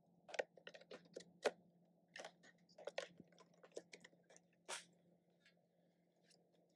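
Plastic food container being handled over a frying pan and set down on a wooden table: a run of light, irregular clicks and taps, the sharpest about a second and a half in, dying away by about five seconds.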